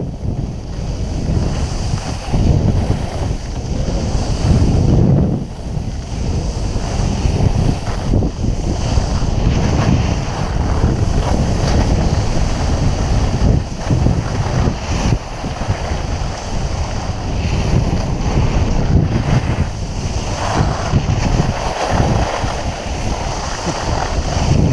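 Wind rushing over the microphone of a GoPro Hero 3+ during a downhill ski run, mixed with skis scraping over icy, granular snow. The rush rises and falls from moment to moment.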